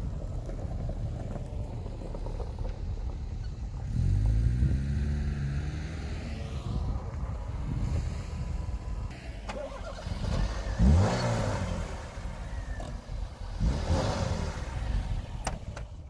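Tofaş sedan engine running while the car is manoeuvred back and forth, revving up and down in pitch several times.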